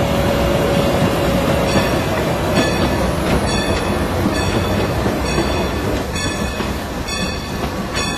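Train running on rails and slowing down: a steady rumble of wheels on track, with rail-joint clicks coming regularly about once a second and a thin wheel squeal that fades out in the first second or two.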